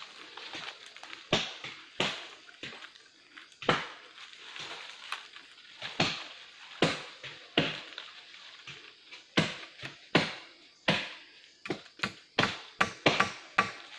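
Repeated chopping and knocking strikes on fresh-cut wood poles as a scaffold frame is built. The strikes are single and irregular at first, then come faster, several a second, in the last few seconds.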